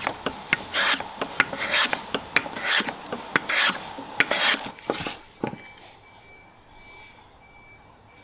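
Metal hand plane taking shavings off a small wooden handle blank in quick strokes, about two a second, each a short rasping swish. The strokes stop a little past halfway.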